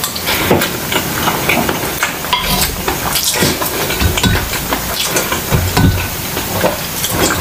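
Close-miked chewing and wet mouth noises of a person eating, with a spoon clinking and stirring in a small glass bowl of broth and a few dull thumps in the second half.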